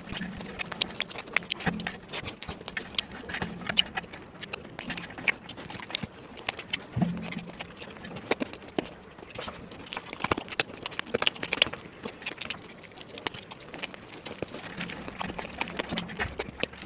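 Close-up eating sounds of chewing chicken and rice: a steady run of irregular mouth clicks and smacks.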